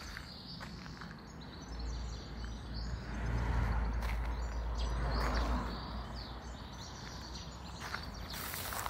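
Rural outdoor ambience: a low rumble swells and fades over a few seconds in the middle, with small birds chirping.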